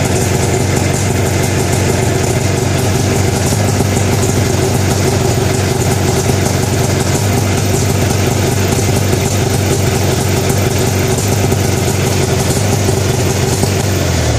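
2008 Arctic Cat F570's fan-cooled two-stroke twin engine idling steadily at about 1,500 rpm.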